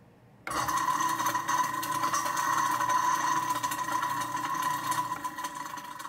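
InSinkErator Badger garbage disposal switched on about half a second in, its motor running with a steady whine, turning freely after a jam was worked loose with a hex wrench. It winds down near the end as it is switched off.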